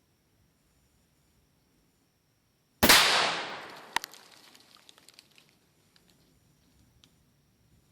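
A single .44 Magnum shot from a Smith & Wesson Model 629 Competitor revolver, its report echoing away over about two seconds, with a short sharp crack about a second after the shot.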